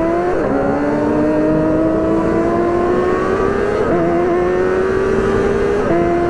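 Sport motorcycle engine riding through traffic with wind and road rumble. Its pitch drops sharply at a gear change about half a second in, then climbs slowly under light throttle, and steps up twice later, about four and about six seconds in.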